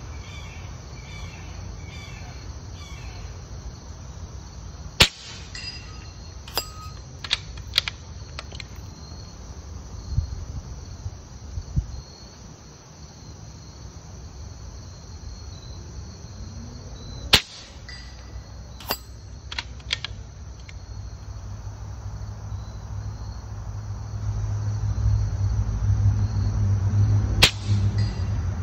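Three shots from a regulated .25 caliber AEA Challenger bullpup PCP air rifle, about five, seventeen and twenty-seven seconds in, each a sharp crack; a few lighter clicks follow the first two shots. Insects chirp steadily throughout, and a low rumble builds near the end.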